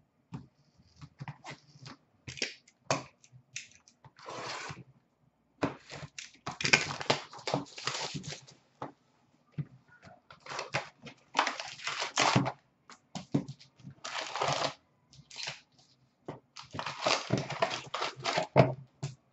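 Hockey card pack wrappers crinkling and tearing open, and trading cards being handled and slid against each other, in irregular rustling bursts of a second or two with short pauses between.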